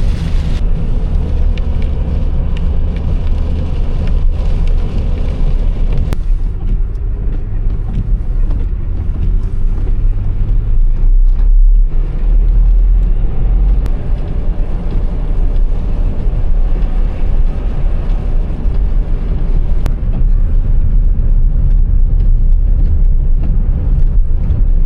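Steady low road rumble and engine noise inside a moving car's cabin, heard while driving a snowy highway, with a few faint ticks.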